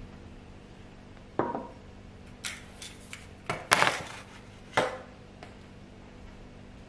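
Objects being set down on a wooden desk: a string of about seven knocks and clacks as a hardboard clipboard with a metal clip and a small ceramic dish are laid out, the loudest a little under four seconds in.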